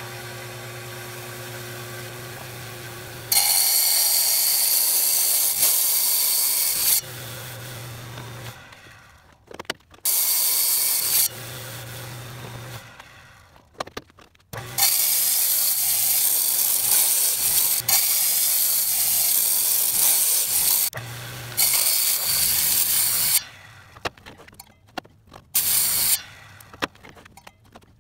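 Large tile saw running, its motor humming steadily between several loud passes where the blade grinds into a concrete pier block. The cuts last from about a second to six seconds. The saw falls quiet a few seconds before the end after one last short burst.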